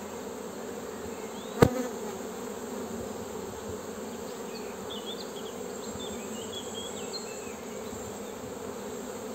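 Honeybee colony buzzing in a steady hum as a frame of bees is held out of the open hive, with one sharp click about a second and a half in.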